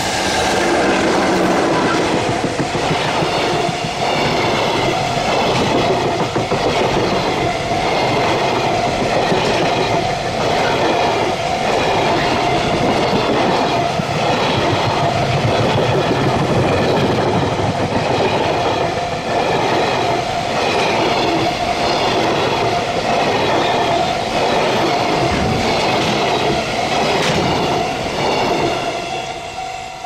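JR Freight container train, hauled by an EF66 electric locomotive, passing close by at speed. The wheels clack over the rail joints in a steady rhythm, and the sound fades near the end as the last wagons go by. A level-crossing warning bell rings steadily under the train noise.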